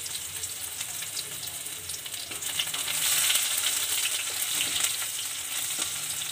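Chopped onion frying in hot mustard oil with cumin seeds in a stainless steel kadhai: a steady sizzling hiss full of small pops and crackles, as a spoon stirs it around the pan.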